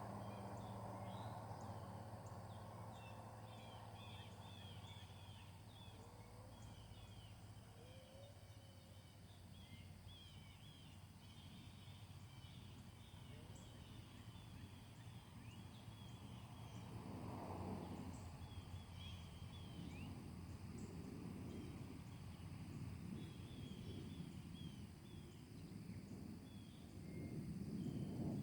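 Small birds chirping in quick, repeated short calls over a faint outdoor background. A car's engine fades away in the first second or so, and a soft rushing swell rises about halfway through and again near the end.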